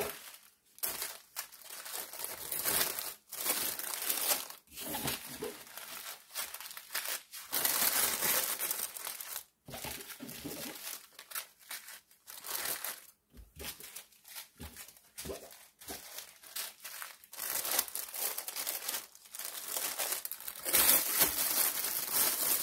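Small plastic zip bags of diamond-painting drills crinkling and rustling as they are handled, stacked and slid into a larger clear plastic bag, in irregular stretches broken by short pauses.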